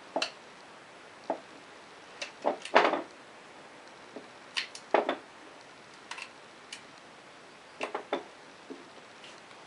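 Irregular small metallic clicks and knocks as the control cable is worked off the oil pump's cable pulley on a Polaris 400 two-stroke ATV engine, the loudest clusters about three and five seconds in.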